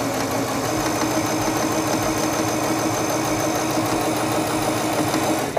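Singer Stylist 7258 computerized sewing machine running at a steady speed, stitching a straight seam: an even motor hum with the rapid chatter of the needle. It stops at the very end.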